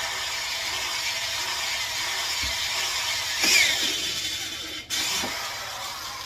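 Corded electric drill running under load into a wooden frame, with a loud swell and changing whine about three and a half seconds in. It cuts out for an instant just before five seconds in, starts again, then tails off.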